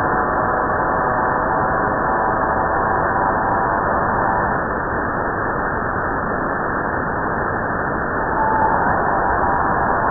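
Shortwave radio reception on 4623 kHz: static hiss overlaid with a signal of several steady parallel tones, which fades out about halfway through. A short single tone sounds near the end and the tones return faintly; the recorder wonders if it is a data burst.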